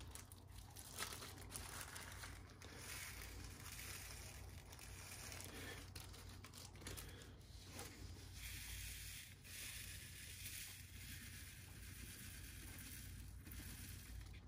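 Faint handling sounds of a small plastic bag of diamond painting drills crinkling as it is opened and emptied, with the resin drills being poured into and shaken across a plastic drill tray.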